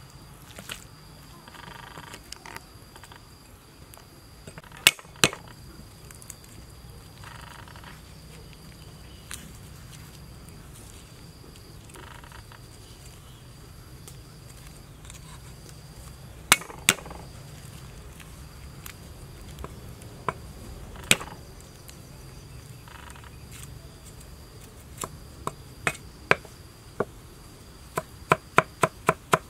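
Cleaver blade knocking on a wooden chopping board as garlic cloves are cut: a few isolated sharp strikes, then steady rapid chopping at about three strokes a second near the end. An insect's steady high chirping runs behind.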